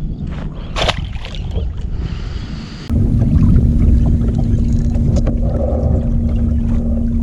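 Scattered knocks and rattles of handling gear aboard a fishing kayak. About three seconds in, the sound jumps to a louder steady low rumble of wind on the microphone, with a steady low hum over it.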